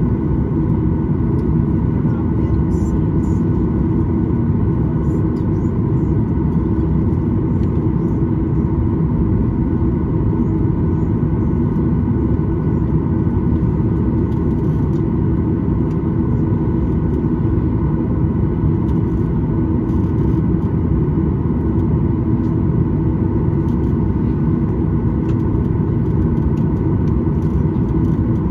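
Steady low drone inside the cabin of a Boeing 737-900 standing still with its engines at idle and the air-conditioning running, with a few steady hums over it.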